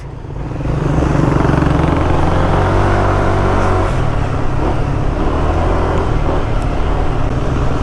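Yamaha NMAX 155 scooter's single-cylinder engine pulling away and running at riding speed. The loudness builds over the first second and then holds steady.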